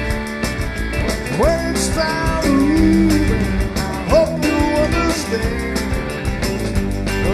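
Southern rock music from a band: electric guitar lines with notes that bend and slide upward, over drums with steady cymbal ticks and bass.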